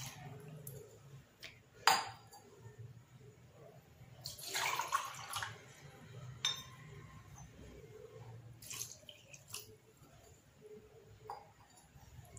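Water poured from a steel tumbler into a plastic bowl of wheat flour and milk, splashing onto the flour, with a louder stretch of pouring about four to five seconds in. A sharp knock near two seconds in and a few light clicks later.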